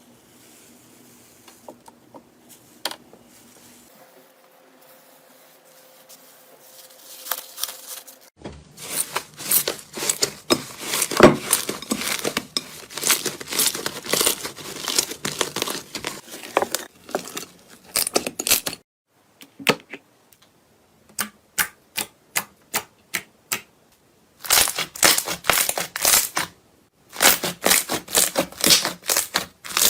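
Slime being squeezed and worked by hand, making rapid runs of small crackling clicks and pops. It starts after a quiet first several seconds and pauses briefly twice.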